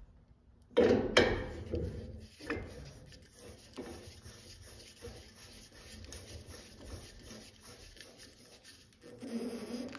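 Metal fitting of a griddle regulator being screwed onto a small green propane cylinder: rubbing and scuffing of the threads and the handled can, with a sharp knock about a second in and another a second or so later.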